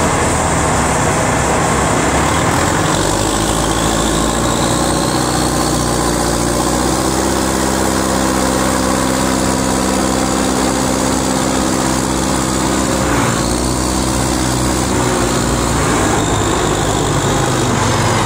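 Caterpillar 944A wheel loader's diesel engine running under work, its note changing as the revs shift about three seconds in and again around thirteen seconds in, with a faint rising whine early on the way up.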